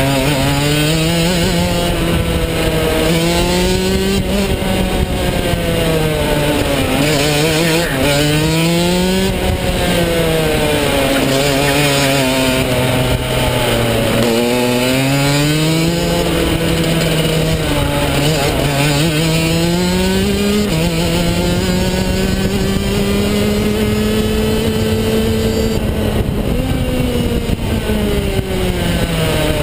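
Rotax DD2 shifter kart's 125cc two-stroke engine heard from the driver's helmet, revving up out of each corner and falling back on braking. The pitch climbs and drops over and over, with a few sudden jumps and one long steady climb about two-thirds of the way through.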